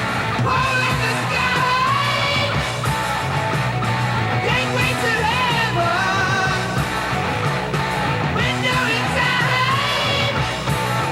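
Rock song with singing over guitar, bass and drums: the soundtrack music.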